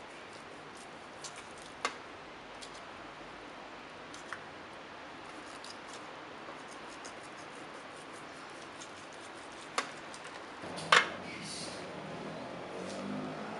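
Faint scattered clicks and scrapes of a utensil against a metal roasting pan as roast pork is cut and lifted, over a steady hiss; the sharpest click comes about eleven seconds in.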